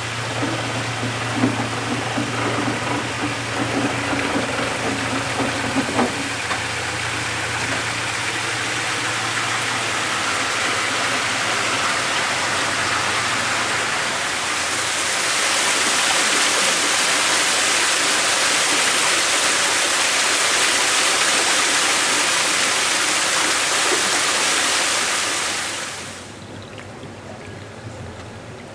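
Water rushing and pouring into a canal lock chamber through its open paddles as the lock fills, over the steady low hum of the narrowboat's engine ticking over. About halfway through, the engine hum fades and the water noise grows louder and hissier. It then drops away suddenly near the end.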